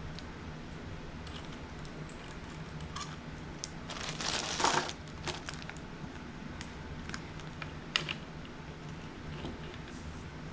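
Light metallic clicks and clinks as clutch plates and small engine parts are handled, with a brief scraping rush about four seconds in and a sharp click about eight seconds in. A low steady hum runs underneath.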